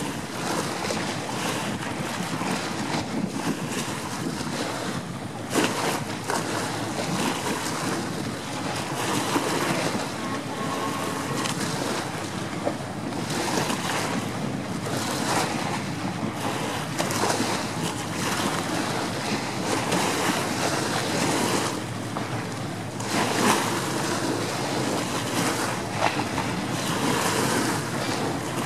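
A fleet of powerboats running past at speed: a steady wash of engine noise and churning wake water, buffeted by gusts of wind on the microphone.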